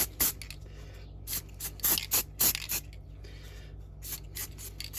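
Aerosol can of Chaos Black spray primer hissing in a series of short, irregular bursts as a model is given light coats. A steady low hum runs underneath.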